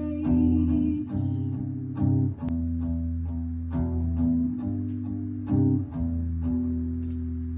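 Live acoustic guitar playing slow strummed chords, a fresh strum about every one and a half to two seconds, in the closing bars of a song. A singer holds the last word, 'rage', about a second in.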